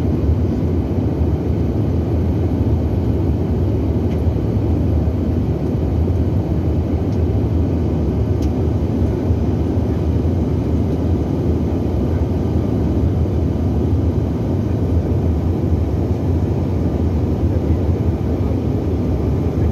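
Steady cabin noise of a Bombardier CRJ900 regional jet in flight: the low, even drone of its engines and the airflow, heard from inside the cabin.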